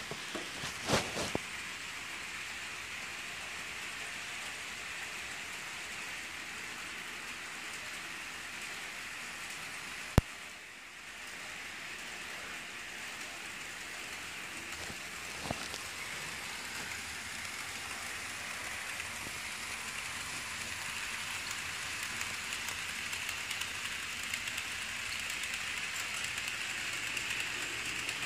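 HO-scale model trains running on the track: a steady whirring hiss of small motors and wheels on the rails, getting louder over the last several seconds. One sharp click about ten seconds in.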